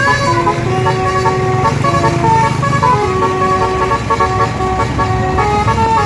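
A bus's 'telolet basuri' multi-tone air horn playing a melody, stepping from note to note without a break, over the rumble of bus engines and passing motorbikes.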